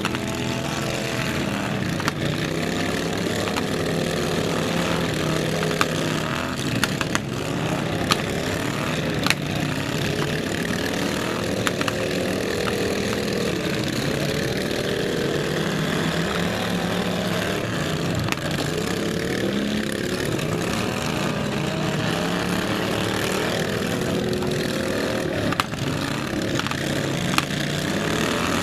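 Several riding lawn mower engines running together, their pitch rising and falling as they rev, with occasional sharp knocks.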